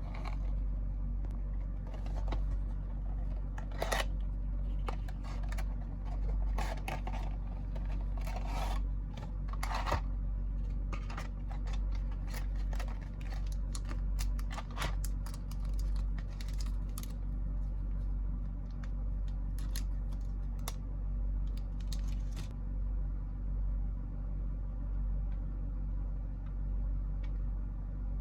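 Packaging of a 1/64-scale diecast model bus being opened and handled: scattered clicks, scrapes and short rustles of cardboard and plastic that stop about 22 seconds in, over a steady low hum.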